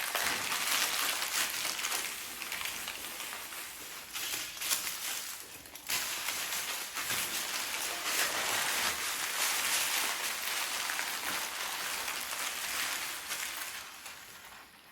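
Material being crumpled and crinkled by hand as a foley imitation of a crackling fire, a dense continuous crackle. It dips briefly about five seconds in and fades near the end.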